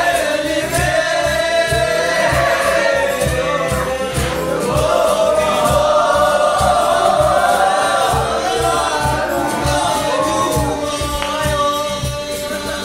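A song with a steady beat playing loudly, with a group of young men singing along together in chorus.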